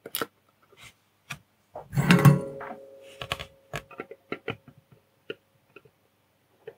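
Small clicks and taps of metal tweezers and a soldering iron being handled on the workbench and set against a circuit board, with one louder metallic clunk about two seconds in that leaves a faint ringing tone for a few seconds.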